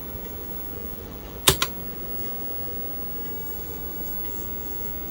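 One sharp key click on the TRS-80 MC-10's keyboard about a second and a half in, over a steady low background hum.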